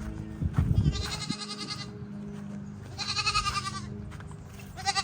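Baby goats bleating: three high, quavering bleats, the first two each nearly a second long, the last short near the end.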